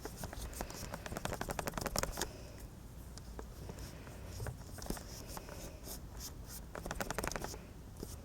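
Faint rapid clicking and scratching in two runs, one from about half a second to two seconds in and another near the end, over a low hum.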